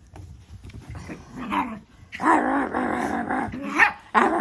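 Small Yorkshire terriers growling in play while they romp, in several growls, the longest about two seconds in and lasting over a second.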